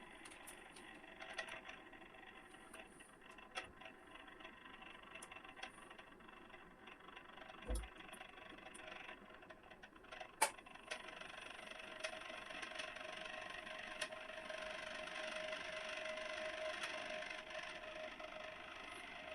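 Magnetic stirrer hotplate running with a steady hum that grows louder and steadier about halfway through. Scattered light clicks and knocks sound over it, with one sharp click about ten seconds in and a dull thud just before it.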